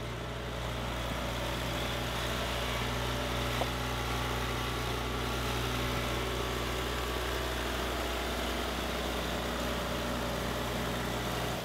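Case 580B tractor loader backhoe's engine running at a steady speed as the machine drives around, an even, unchanging low hum.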